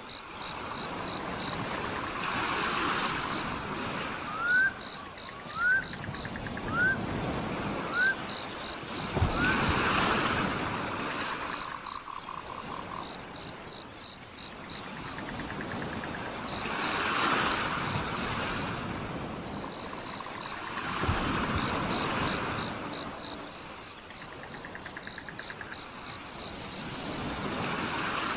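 Waves washing in and drawing back in slow swells under a chorus of frogs and insects, heard as steady rapid trills. Between about four and nine seconds in, five short upward-sweeping animal calls stand out as the loudest sounds.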